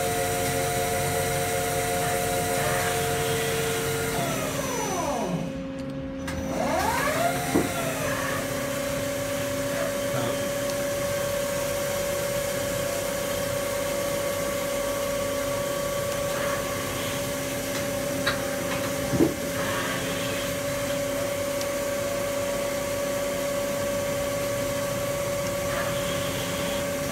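Hwacheon Hi-Eco 31A CNC lathe's spindle spinning its 10-inch hydraulic chuck, with a steady whine of several tones. About five seconds in the whine falls away as the spindle slows right down, then rises again and settles at a new steady pitch as it spins back up. There are two sharp clicks about two-thirds of the way through, and near the end the pitch begins to fall again.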